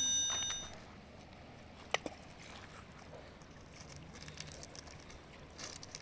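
A bright metallic ring fading out, then a single sharp click about two seconds in, over a faint outdoor background.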